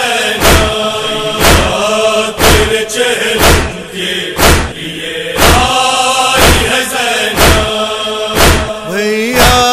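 Male chorus of a nauha chanting in long held notes over a steady beat of chest-beating (matam), about one strike a second. Near the end a solo male voice comes in with a wavering line.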